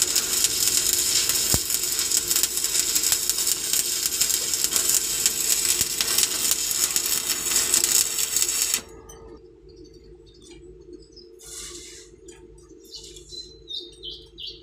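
Electric arc welding: a dense, steady crackle and sizzle that cuts off suddenly about nine seconds in. After it come light metallic clinks and taps, with a steady hum underneath throughout.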